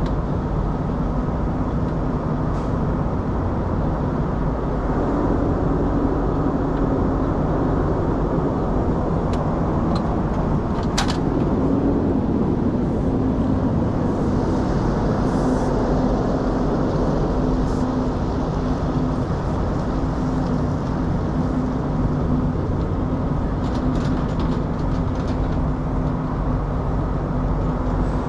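Semi truck's diesel engine idling steadily, with a single sharp click about eleven seconds in.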